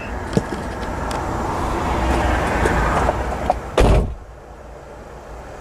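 Road traffic passing on a highway overpass: a broad rush of tyre and engine noise that swells, then drops away about four seconds in, just after a brief loud thump.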